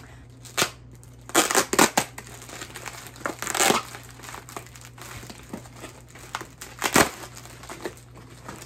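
Clear plastic packaging crinkling and rustling in irregular bursts as it is handled and pulled open, loudest about one and a half to two seconds in and again about seven seconds in.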